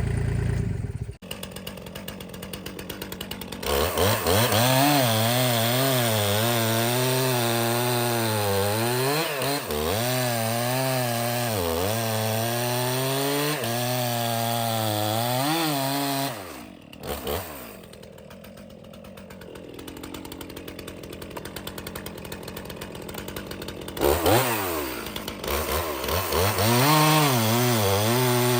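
Stihl MS 391 two-stroke chainsaw idling, then revved to full throttle and cutting through a log. Its engine note wavers and dips under load until it drops back to idle about 17 s in, and it revs up into another cut at about 24 s. Before the saw, a low rumble stops abruptly about a second in.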